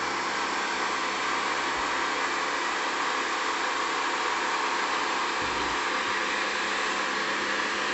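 Pressure washer running, its jet spraying on brick paving tiles with a steady hiss.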